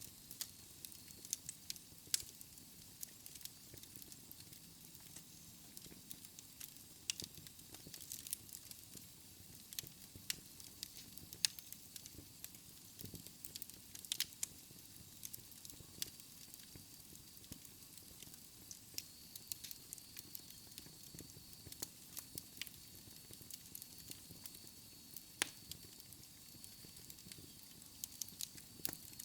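Wood fire crackling in a fireplace: scattered sharp pops and snaps over a soft steady hiss. A faint high tone comes in about two-thirds of the way through.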